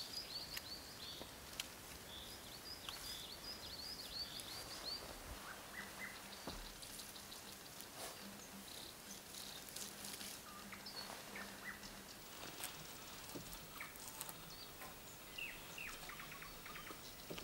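Quiet forest ambience with a small songbird giving quick runs of short, high chirps in the first few seconds and again near the end. In between come faint clicks and rustles from wooden poles being handled on the shelter frame.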